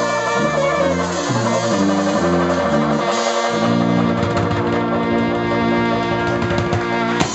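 Dixieland jazz band playing live, with trombone and trumpet over a helicon (tuba) bass line. The bass moves through a run of notes for the first three seconds, then the band holds one long closing chord that cuts off shortly before the end.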